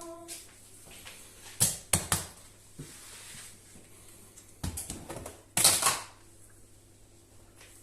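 Kitchen things being handled: a run of short, sharp knocks and clatters in small groups, the loudest a scraping clatter about three-quarters of the way through.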